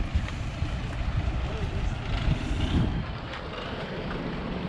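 A steady low rumble, with faint voices of people talking in the background.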